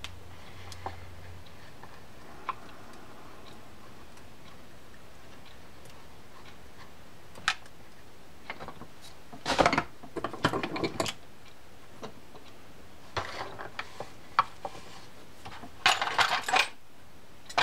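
Scattered light clicks and taps of small metal fishing-reel parts being handled as the yoke springs are fitted into a Penn Senator reel's side plate, with quicker runs of clicks about halfway through and again near the end.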